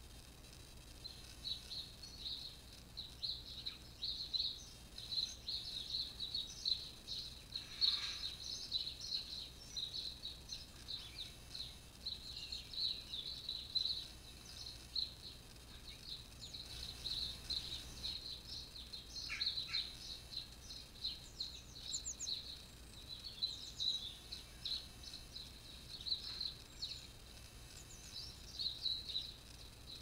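Small garden songbirds chirping: a rapid, near-continuous run of short high chirps, several a second.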